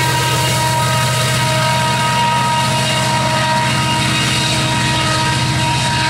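EMD SD70ACe diesel-electric locomotive's two-stroke diesel engine running under power as it passes, a steady low drone with a fast pulse in it.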